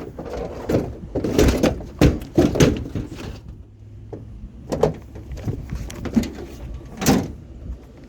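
A series of separate knocks and clunks, the loudest about two seconds in and another near the end, over a low steady rumble.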